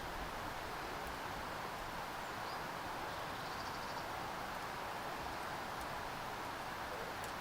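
A steady rushing hiss with no change in level, with a few faint, brief bird chirps and ticks above it.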